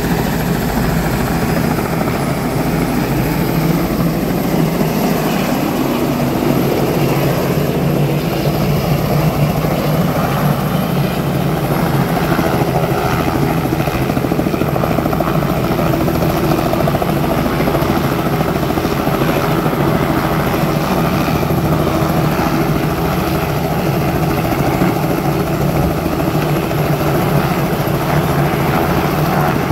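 Small two-bladed helicopter running on the ground, its engine and rotor giving a steady, loud drone.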